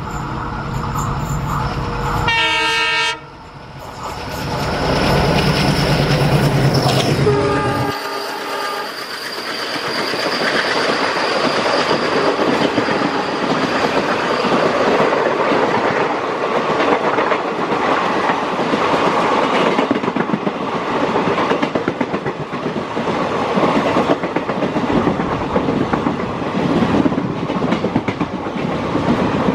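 Twin ALCo WDG-3A diesel locomotives approach and pass on the adjacent track, sounding two horn blasts about five seconds apart while their engines run loudly close by. After that comes a long rush of passenger coaches going by at speed with a steady clickety-clack of wheels over rail joints.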